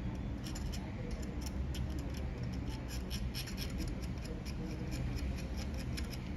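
Quick, irregular clicks and scrapes of a small metal hand tool working on a phone's circuit board during RAM chip rework, over a steady low hum.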